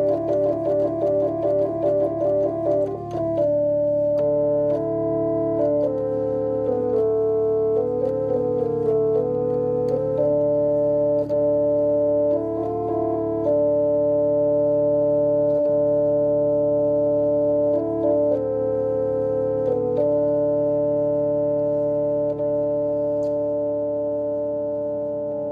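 Organ music: a fast repeating figure of notes for about three seconds, then sustained chords changing every second or two over a steady low drone, slowly fading near the end.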